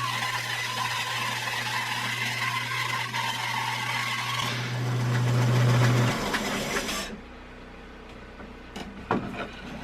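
Shop bandsaw with a ½-inch, 3-teeth-per-inch blade sawing a slab from a dry hardwood log: a steady motor hum under the rasp of the cut, growing louder a little past four seconds in. About six seconds in the motor is switched off, the hum stops abruptly and the saw runs down within a second, followed by a few light knocks.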